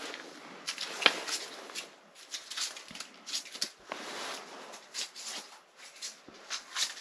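Irregular rustling, clicks and scrapes from handling fishing gear and clothing. A small plastic bait container is handled, then the body shifts and reaches across, with the loudest click about a second in.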